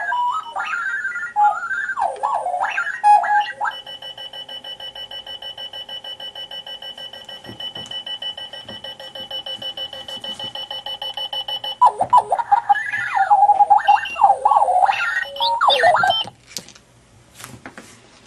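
Clocky robotic alarm clock's electronic alarm going off: random chirps and beeps jumping up and down in pitch, then a steady, rapidly pulsing tone for about eight seconds, then more random chirps that stop about sixteen seconds in. A few faint clicks follow.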